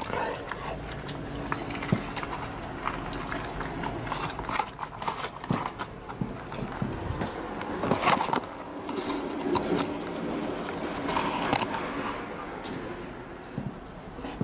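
Alaskan Malamute eating chicken nuggets by hand, along with handling of a cardboard McNuggets box: a stream of clicks, scrapes and rustles, loudest about eight seconds in.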